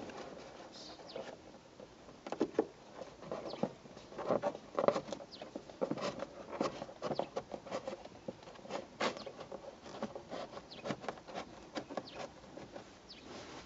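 Irregular scratching, rustling and small clicks of fingers pushing a dashcam cable into the edge of a car's headliner and plastic roof trim.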